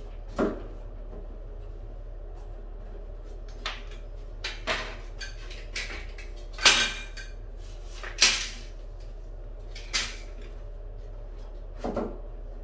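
Sharp wooden knocks and clacks, about eight at irregular intervals and the loudest a little past the middle, as a strip of rotted door-frame molding is worked loose and handled.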